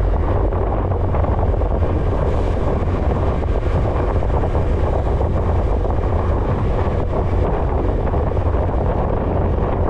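Wind buffeting the microphone of a moving RKS Newlight 125 Pro motorcycle, a steady low rumble with no break.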